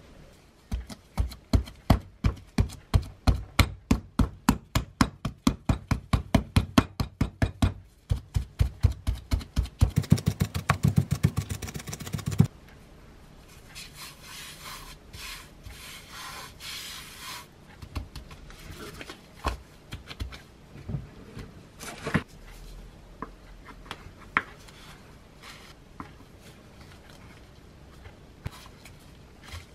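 Rapid, even knocks, about four a second and quickening to about six a second, run for some twelve seconds and then stop abruptly. After them, a gloved hand rubs flour across a wooden cutting board. Near the end come a few sharp ticks as a blade cuts salt-bread dough into pieces on the board.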